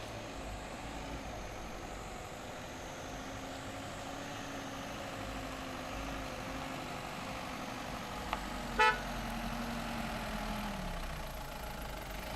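Vehicle running with a steady engine hum, with one short horn toot about nine seconds in.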